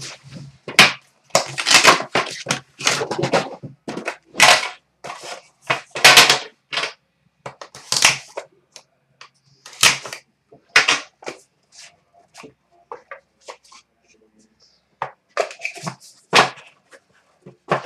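Trading-card hobby box being unpacked by hand: rustling and crinkling of packaging with a string of sharp clacks and knocks as the box and its black inner box are opened and handled, busiest in the first few seconds and again near the end, with only scattered small clicks in between.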